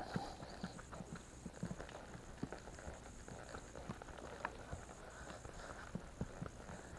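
Barefoot horse walking on a dirt and grass trail, its hooves giving soft, irregular hoofbeats.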